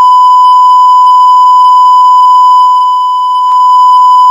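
Loud, steady censor bleep: one unbroken electronic beep tone laid over a stretch of swearing to blank it out.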